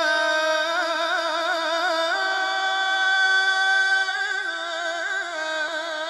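A man's voice reciting the Quran in melodic tajweed style, drawing out one long vowel as a single ornamented note with quavering turns. The note steps up in pitch about two seconds in and holds there.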